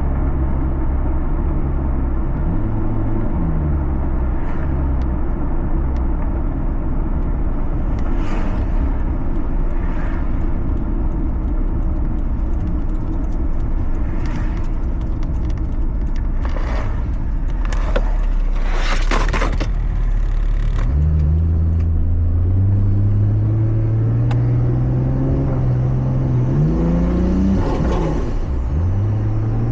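Toyota Supra engine heard from inside the cabin while driving: it runs at part throttle at first, then a stretch of mostly road rumble with several short sharp noises around the middle. About two-thirds of the way in the engine comes on hard and its note climbs steadily as the car accelerates, with a change in pitch near the end.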